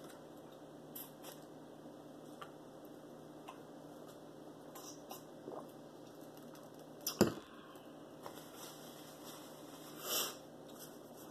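A person drinking water from a stemmed glass and setting it down, with one sharp knock about seven seconds in. Faint mouth and handling noises come before it, and a short hiss near the end.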